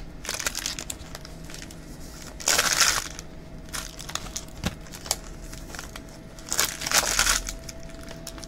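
Trading-card pack wrappers and box packaging being crinkled and torn open by hand, in short bursts. The loudest bursts come about two and a half seconds in and again about seven seconds in, over a faint steady hum.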